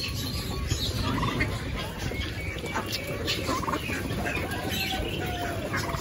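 Many caged market birds calling at once, fowl among them: short overlapping calls and chirps scattered throughout, over a steady low rumble.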